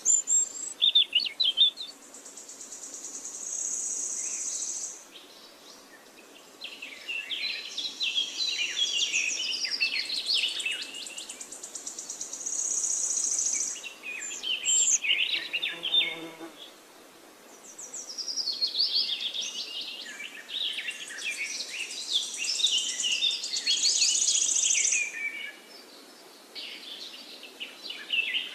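Birds chirping, with a high insect trill coming in three stretches of a few seconds each.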